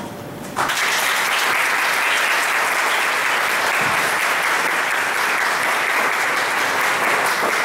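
Audience applauding: many people clapping in a dense, steady patter that breaks out about half a second in, right after a speech ends.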